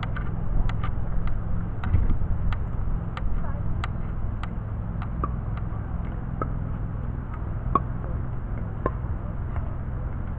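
A pickleball rally: a string of sharp pocks from paddles striking the plastic ball and the ball bouncing on the court, coming irregularly about one every half-second to a second. Under them runs a steady low rumble.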